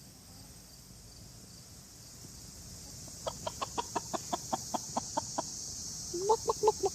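Chickens clucking: a rapid run of short, soft clucks starts about three seconds in, and louder, fuller clucks come near the end.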